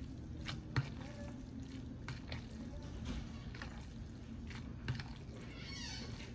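Metal fork stirring and lifting wet instant noodles in a plastic bowl, with scattered light clicks of the fork against the bowl over a low steady hum.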